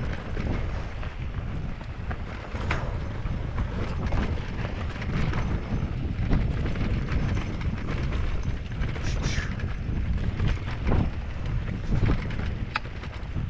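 Norco Sight VLT electric mountain bike descending a rough dirt trail: a steady low rumble of tyre and wind noise, with scattered sharp clicks and knocks at irregular intervals as the bike rattles over bumps.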